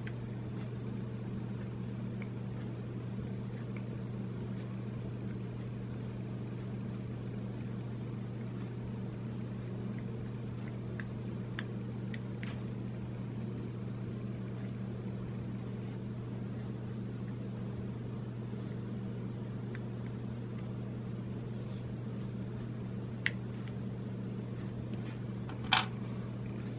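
Steady low hum of the room, with a few faint clicks and taps from small camera parts being handled. Two sharper clicks come near the end.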